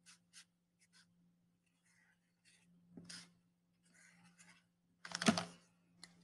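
Marker drawing on a paper plate: a series of short, faint scratchy strokes, with a louder handling noise about five seconds in.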